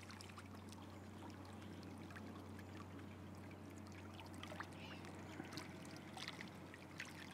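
Faint water lapping and trickling at a rocky reservoir margin, with scattered small ticks over a steady low hum.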